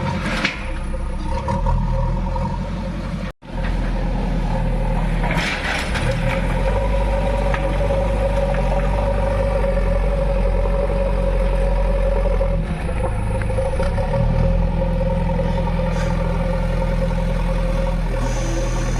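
JCB 3DX backhoe loader's diesel engine running steadily under working load, with a steady higher whine over the engine note. The sound drops out for a split second about three and a half seconds in.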